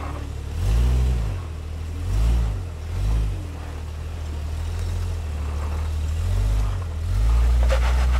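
Lifted Jeep Grand Cherokee's engine pulling at low speed over rocks, revving up and dropping back in short throttle blips about a second in, twice more within the next two seconds and again near six and a half seconds, then held longer near the end.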